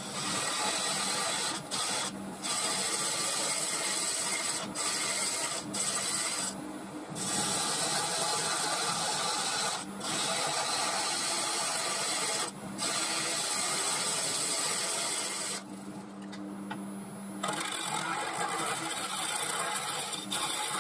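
Turning tool cutting the outside of a spinning mulberry bowl blank on a wood lathe: a steady cutting hiss of wood being sheared, broken by several short pauses, one of them longer, as the tool comes off the wood. In those gaps the lathe's steady motor hum is heard.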